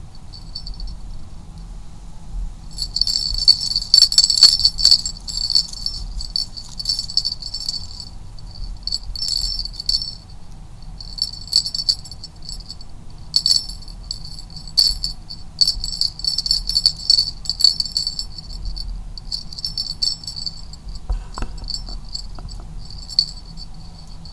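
Small jingle bell on a feather wand cat toy jingling in irregular bouts as a kitten bats and pulls at it, starting about three seconds in.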